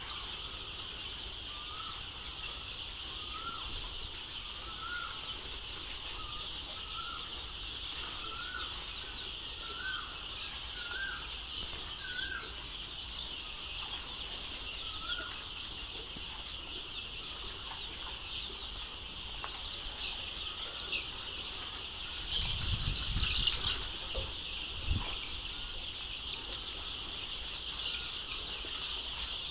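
Dense, steady peeping of a large brood of day-old layer chicks, many voices chirping at once. In the first twelve seconds one call repeats about once a second, and a few low thumps stand out a little over twenty seconds in.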